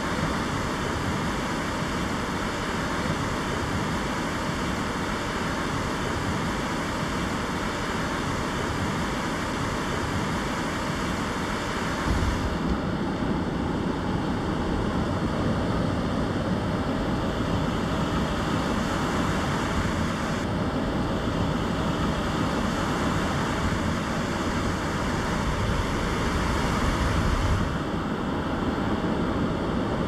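Steady wash of surf breaking and running up a sandy shore, with wind rumbling on the microphone. The sound shifts abruptly about twelve seconds in and again near twenty and twenty-eight seconds.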